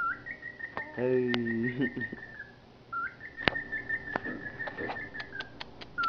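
Cockatiel whistling two long, nearly steady high notes, each starting with a short upward slide. A short low voice comes about a second in, and sharp clicks come around the middle and in a quick run near the end.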